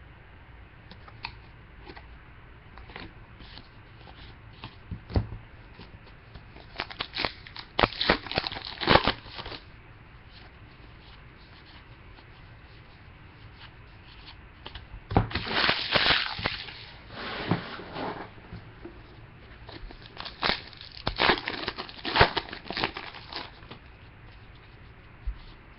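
Trading card pack wrappers being torn open and crinkled, in three bursts of rustling, with light clicks and shuffles of cards being handled in between.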